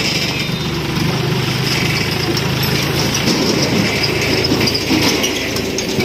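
Farm tractor's diesel engine running steadily as it tows a trolley past at low speed.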